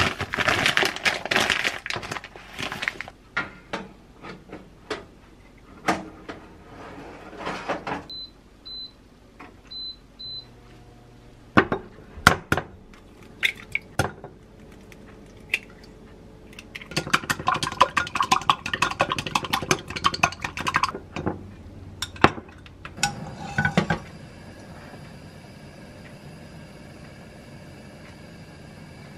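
Eggs cracked with sharp taps against a glass mug, then beaten in it with a quick run of clinks against the glass. From about two-thirds of the way in, a steady sizzle of oil in a frying pan on a gas burner as beaten egg is poured in. At the start, plastic packaging rustles and an appliance gives a few short beeps.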